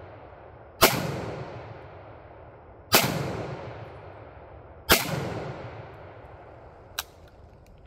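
An M1 Garand semi-automatic rifle in .30-06 fires three shots about two seconds apart, each crack echoing and dying away over a second or more. A fainter sharp click follows near the end.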